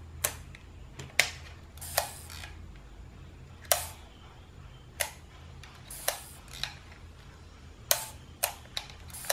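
Partly disassembled Canon Demi EE17's shutter mechanism being charged and tripped by hand: about a dozen sharp metallic clicks at irregular intervals.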